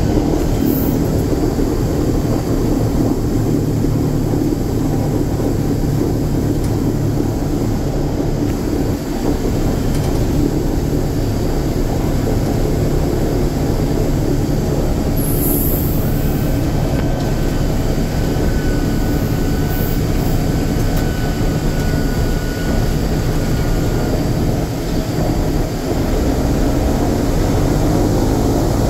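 The four Wright R-3350 radial engines of a B-29 Superfortress running at taxi power, heard from inside the glazed nose: a loud, steady drone with a deep pulsing hum.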